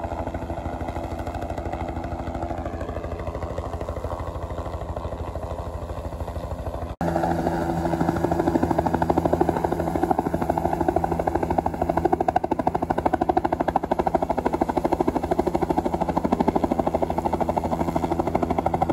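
Helicopter flying low overhead, its rotor blades beating in a rapid, steady chop. It is louder after a cut about seven seconds in.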